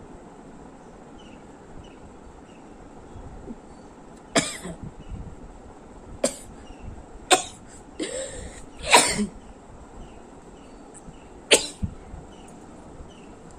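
A woman sneezing in a fit: a run of about five sharp, loud sneezes over some seven seconds, one of them preceded by a rising voiced intake of breath.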